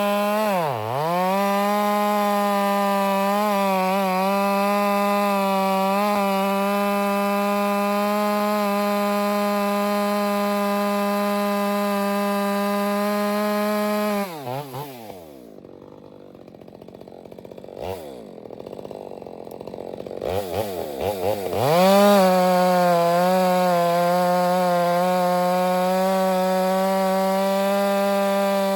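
Ported Stihl MS 462 two-stroke chainsaw with a 28-inch bar running at full throttle through wet spruce, its high engine note pulling down briefly about a second in and then holding steady. About halfway through the throttle is released and the saw drops to idle for several seconds, then it revs back up to the same high pitch and holds there.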